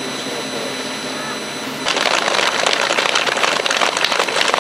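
A crowd bursts into applause about two seconds in, many hands clapping at once. Before it there is only a steady hiss with faint voices.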